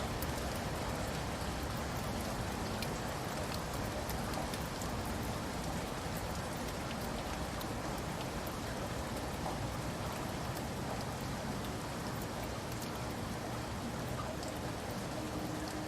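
Steady rain on a roof: an even hiss dotted with many small, sharp drop ticks.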